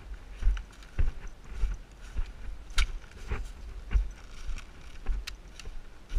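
Walking footsteps, an even thump about every 0.6 seconds, with light clicks and rattles from carried gear.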